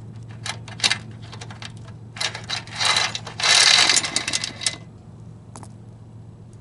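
Loose steel roller drive chain clinking and rattling as it is handled and pulled off the sprockets: scattered clicks, then a longer, louder rattle about three and a half seconds in that stops at about five seconds. The chain has come apart because its master link was lost.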